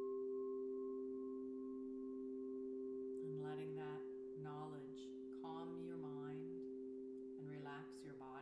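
Crystal singing bowl ringing with a steady, sustained tone after being struck. From about three seconds in, a woman's voice sings a wordless tone with vibrato over it.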